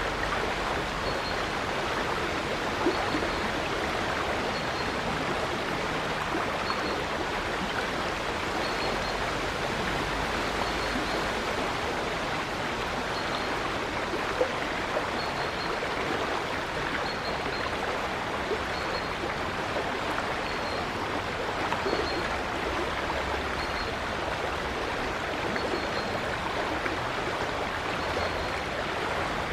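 River water rushing and babbling steadily over stones, with a faint short high chirp repeating about once a second.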